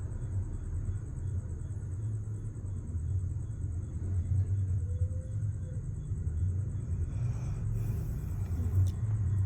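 Snoring: a low, steady rumble with slight swells.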